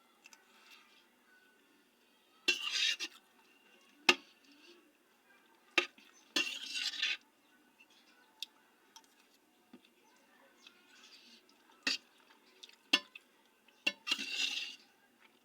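An eating utensil clinking and scraping against a dish of rice with peas and carrots: several sharp clinks and three short scrapes, with pauses between.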